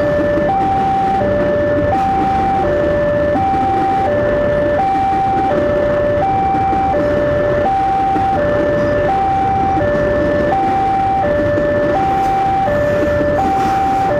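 Railway level-crossing warning alarm sounding a steady two-tone hi-lo chime, the two notes taking turns about every two-thirds of a second. Under it, the rumble of a long Babaranjang coal train's wagons rolling past on the rails.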